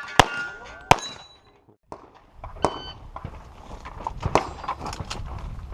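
Pistol shots with steel targets clanging and ringing as they are hit. Two loud shots come just after the start and about a second in, then the sound drops out briefly. After that a run of quieter, quick shots follows, with steel pinging as hits land.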